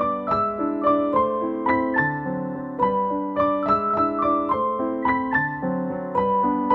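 Background piano music: a gentle melody of single struck notes over held chords, a few notes each second, each note fading after it is struck.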